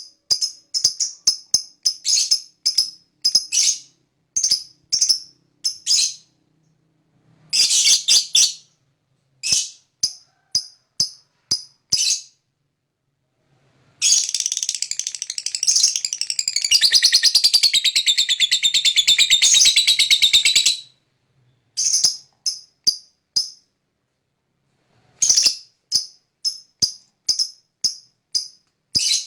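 Lovebird calling: series of short, sharp, high chirps. About halfway through comes one long unbroken rapid chattering trill lasting some seven seconds, the long 'ngekek' call. Then the short chirps resume.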